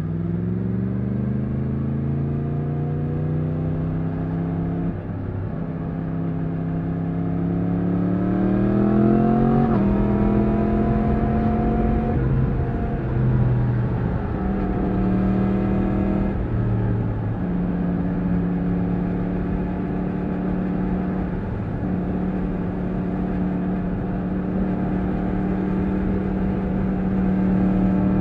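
2020 Yamaha MT-10's crossplane inline-four engine under way, its pitch climbing through the first ten seconds with a couple of brief dips, then holding a steady cruise with a few short throttle changes before rising again near the end, over a rush of wind noise.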